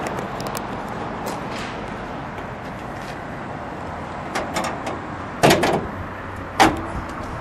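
Hood latch of a 1972 Chevrolet Camaro being worked by hand through the grille and the steel hood popped up: a few metal clunks and clicks over steady background noise, the loudest about five and a half seconds in and a sharp click about a second later.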